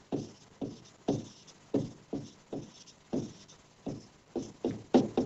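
Stylus tapping and stroking on a smart-board screen while handwriting: a run of short taps, about three a second.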